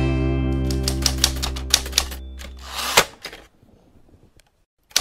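Typewriter keystrokes clacking in quick succession over the last held chord of a guitar rock soundtrack, which fades out. About three seconds in, a swish ends in a loud clack, like a carriage return, and then it goes briefly quiet.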